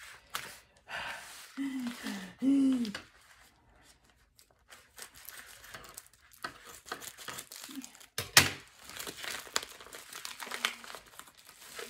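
Package wrapping crinkling and tearing as a parcel is cut open with scissors, in many small irregular crackles, with one sharp loud snap about eight seconds in.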